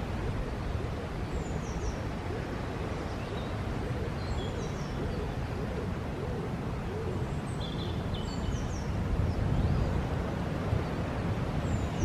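A small songbird repeats short, high, falling notes every few seconds over a steady low outdoor rumble.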